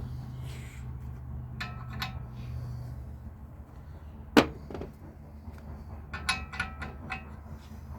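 Brass valve parts clinking and ringing as they are handled, with one loud sharp knock about four and a half seconds in and a quick run of ringing clinks near the end. A steady low hum stops about three seconds in.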